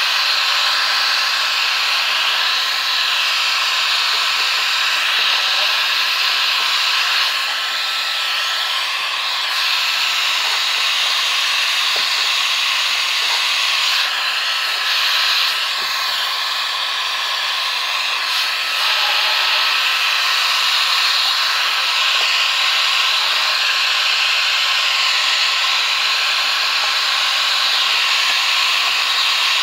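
Electric hot air gun running steadily, a continuous rush of blown air with a faint steady hum under it, heating the end of a PVC pipe to soften it for forming a joint.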